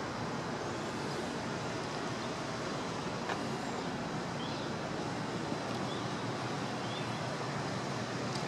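Steady outdoor background noise, an even hiss and rumble, with a few faint short high chirps in the middle and a faint click about three seconds in.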